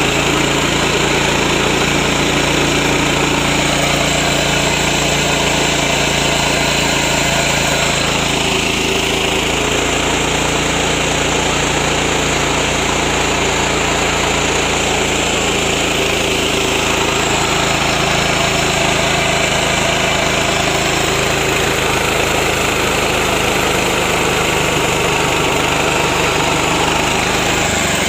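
Small 7 to 7.5 HP engine of a mini rice milling machine running steadily at a constant speed, with the mill's machinery running on it.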